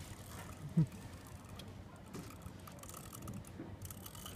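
Fishing reel clicking and ticking while a hooked fish is being played on the line, with a short vocal sound about a second in.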